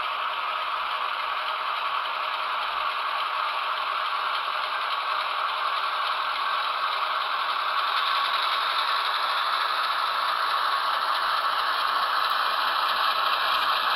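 HO-scale Athearn Genesis ES44AC model locomotive running on the track, its Soundtraxx Tsunami DCC sound decoder playing a GE diesel engine sound through the small onboard speaker. The sound is steady and gets louder as the model draws nearer.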